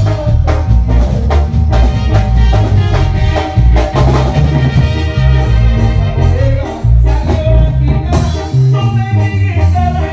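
Live band playing Latin dance music, loud, with a drum kit keeping a steady beat under a pulsing bass line and a melody.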